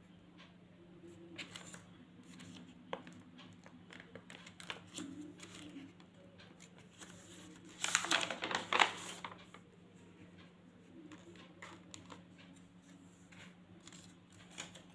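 Paper rustling and light clicks as hands lift and press down paper flaps glued into a spiral-bound scrapbook, with a louder rustle about eight seconds in as a page is turned. A low steady hum runs underneath.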